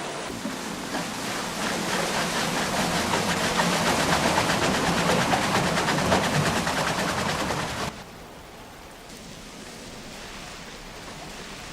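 Rushing water at a water-wheel-driven sawmill, swelling louder with a fast, even rhythmic clatter in it, then dropping abruptly to a softer steady rush about eight seconds in.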